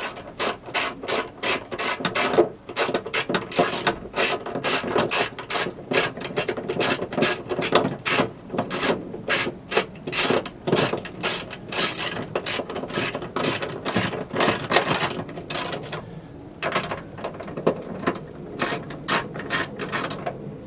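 Ratchet with a 10 mm deep socket clicking in quick repeated strokes as the trunk latch's mounting nuts are tightened. The clicking thins out after about sixteen seconds.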